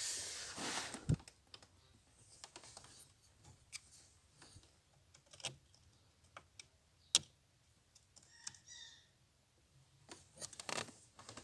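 Scattered light clicks and scrapes of a small flat-head screwdriver working at the tiny screws of a car's ignition switch, with a rustle at the start and near the end and one sharper click about seven seconds in. The screws are stuck and will not turn.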